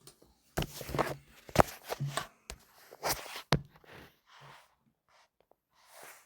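Scattered short fragments of voices, broken up by a couple of sharp clicks or knocks, with dead silence between them.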